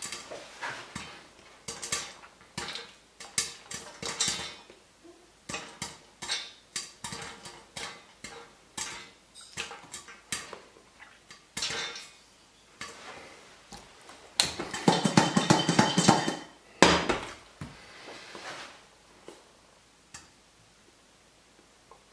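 Popcorn kernels popping inside a covered saucepan, with irregular sharp pops ticking against the pan and its glass lid. A dense, loud rattling stretch comes about fifteen seconds in, then the pops thin out and nearly stop near the end: the batch is almost finished popping.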